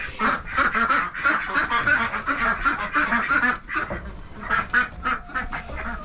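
Several domestic ducks quacking in quick, overlapping calls, easing briefly a little past the middle before picking up again.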